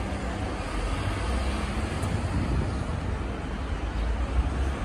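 Outdoor background noise: a steady hiss over a low, unsteady rumble, like distant traffic and wind on the microphone.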